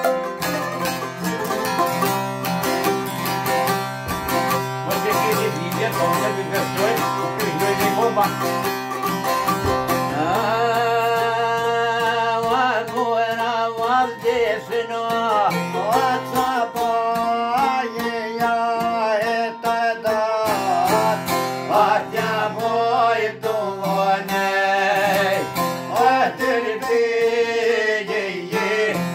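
Plucked long-necked lutes playing an Albanian folk tune. About ten seconds in, a man's voice comes in singing over the strings.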